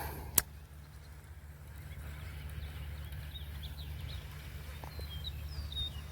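Birds calling faintly in short chirps over a steady low rumble, with one sharp click about half a second in.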